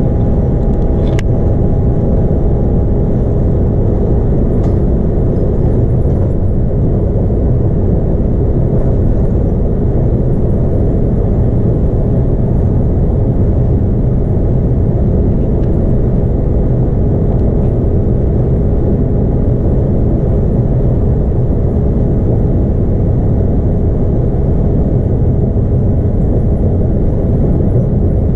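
Inside a Scania K310UB bus cruising at motorway speed: a steady drone from its rear-mounted 8.9-litre five-cylinder Scania DC9 diesel, mixed with road and tyre noise.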